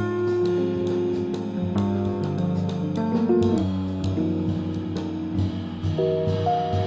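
Instrumental background music led by plucked guitar, moving through a melody over a steady bass line.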